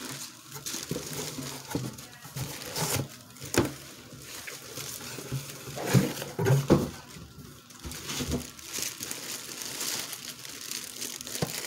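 Clear plastic packaging bags crinkling and rustling as wrapped items are lifted out of a cardboard shipping box, with a couple of louder knocks about halfway through as the box is handled.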